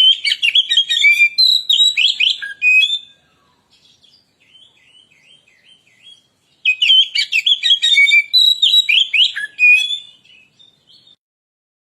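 Oriental magpie-robin (kacer) singing: two loud phrases of rapid, varied high notes, each about three seconds long, with softer notes in between.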